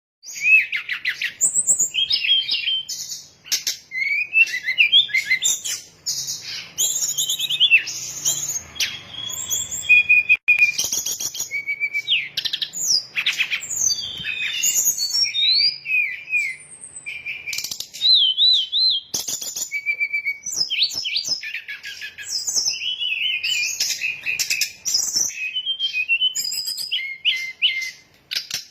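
Brown-chested jungle flycatcher song played as a lure call: a busy, unbroken stream of high whistled phrases, slurred up-and-down notes and trills, with sharp ticking clicks between them. It starts suddenly out of silence.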